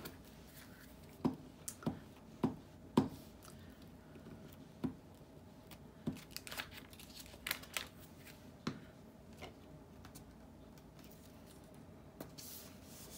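A glue stick and paper being handled: a series of sharp clicks and taps over the first several seconds, the loudest about three seconds in, with the stick scraping across a sheet of paper. Near the end, a soft rubbing sound as a glued paper piece is pressed down onto a card.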